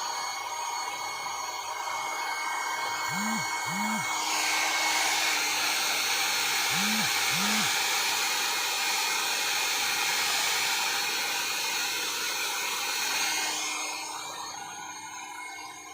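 Handheld hair dryer blowing steadily, drying hair. Its rush grows louder and fuller about four seconds in and eases off near the end.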